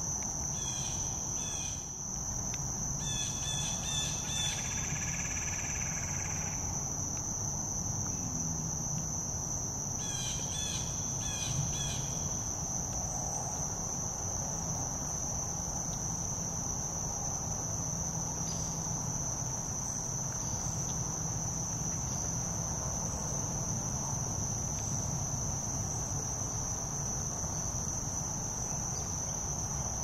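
Insect chorus: a steady high-pitched drone over a low background rumble, with a few short runs of chirping calls in the first dozen seconds.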